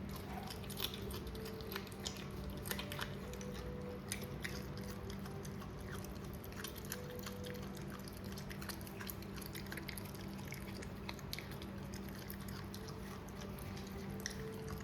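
Raccoon chewing and crunching its food: irregular small crunches and clicks over a steady low hum.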